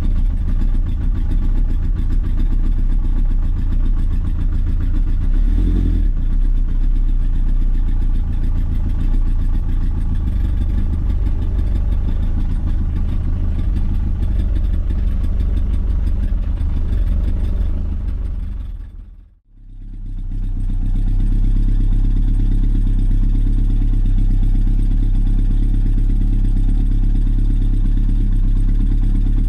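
Honda CB900F air-cooled inline-four engine running steadily after an engine repair. About two-thirds of the way through, the sound fades away almost to nothing, then comes back and runs steadily again.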